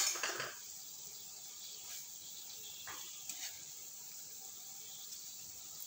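Potato-and-pea balls deep-frying in a pan of oil on a low flame, the oil sizzling with a steady, high hiss.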